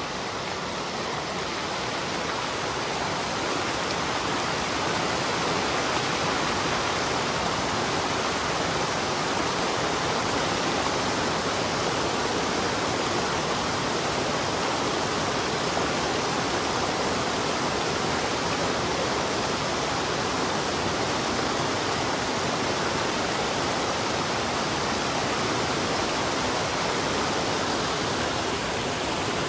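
Small waterfall on a snowmelt-swollen creek, water pouring heavily over a low rock ledge with a steady rushing splash close to the microphone.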